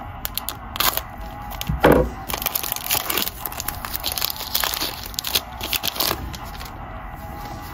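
Foil wrapper of a Panini Mosaic trading card pack being torn open and crinkled, a run of sharp crackles with the loudest about two seconds in.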